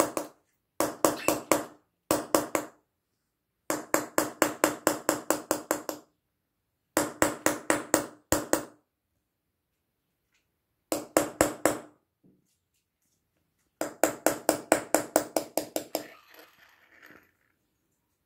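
Small hammer tapping a steel engraving chisel into a metal tray, hand chasing and engraving. Quick runs of light metallic taps, about six a second, break off into short pauses, and the tray rings with a low note under each run.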